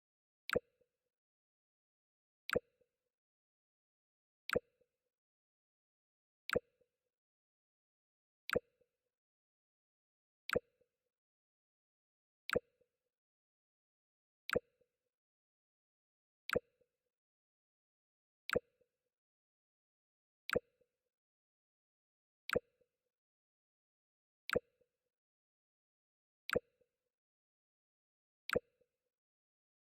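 Mac OS X "Jump" sound effect played over and over: a sharp click with a short low blip straight after it, once every two seconds.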